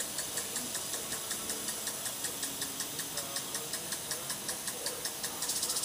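Insects chirping in a steady rhythm of about three to four chirps a second, turning into a faster, denser pulsing near the end.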